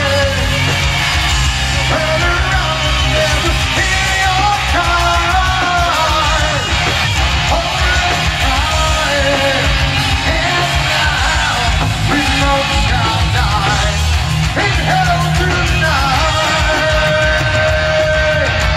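Heavy metal band playing live at full volume, with sung and yelled lead vocals over the band and a long held sung note near the end, heard from within the crowd.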